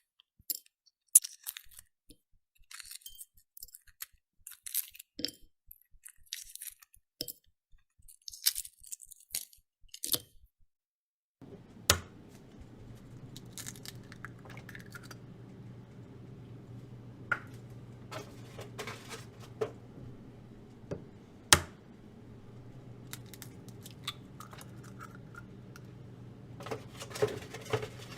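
Egg-making kitchen handling: sharp clicks, clinks and short crunchy crackles, such as shells cracking and utensils touching. About eleven seconds in, a steady low hum starts, with a few loud sharp clicks and more crackling over it.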